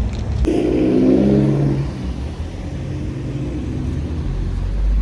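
A road vehicle's engine running with a low rumble. Its pitch rises about half a second in, then dies back after a couple of seconds.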